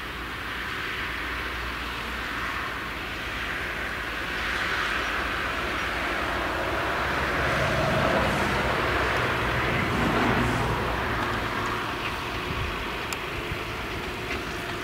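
Claas Jaguar 970 forage harvester with its MAN V8 engine running under load while chopping maize, mixed with a tractor pulling a silage trailer alongside. The machinery noise is steady, swells louder in the middle, and eases off toward the end.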